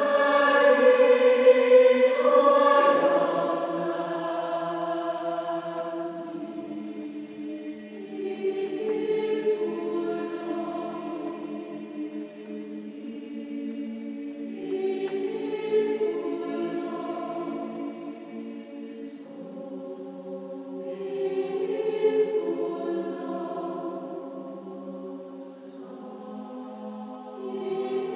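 Mixed-voice choir of women and men singing slow, sustained chords a cappella in a large church. The phrases swell and fade, loudest about two seconds in.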